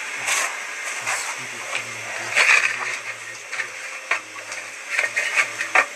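Water splashing in a metal basin, with several sharp clinks and knocks, the loudest about two and a half seconds in and near the end.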